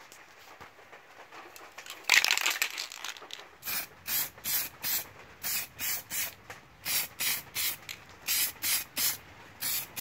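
Aerosol spray paint can spraying steel reinforcement plates. A longer, louder burst comes about two seconds in, followed by short hissing bursts in quick groups of three or four, about three a second.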